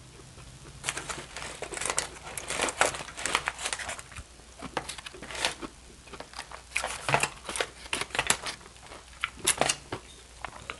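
Aluminium foil crinkling in many quick, irregular crackles as hands dig through food wrapped in it.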